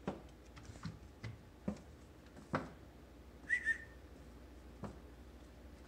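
Labradoodle puppy's paws tapping and clicking on a porch floor mat in scattered soft steps. About halfway through comes a brief high two-note whistle-like chirp, the loudest sound.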